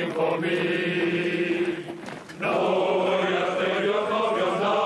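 Men's voices singing together in long, held notes, like a choir chanting, with a short break about two seconds in before the singing resumes.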